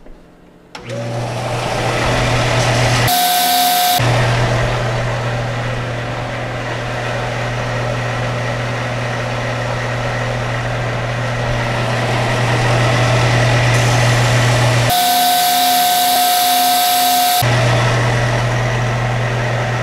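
Bench belt sander starting up about a second in and running with a steady motor hum and hiss while a thin wooden kit part is sanded to shape on it. Twice, briefly around three seconds in and again for a couple of seconds near the end, the hum gives way to a higher steady whine with more hiss.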